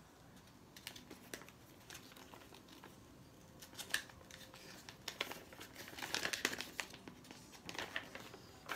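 Crinkling and rustling of a small packet being opened by hand and a folded paper instruction leaflet being pulled out and unfolded, in quick irregular crackles that get busier about halfway through.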